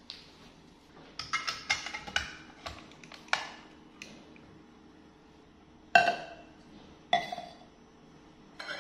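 Hard kitchenware clinking and knocking as juicer parts, plastic cups and a plate are set down on a stone countertop: a quick run of clatter, then three single knocks, each with a short ring.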